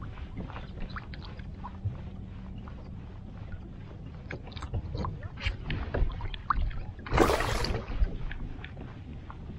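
Small waves lapping against a fishing kayak's hull, with scattered light taps and clicks from the rod and gear, and one brief loud rush of noise about seven seconds in.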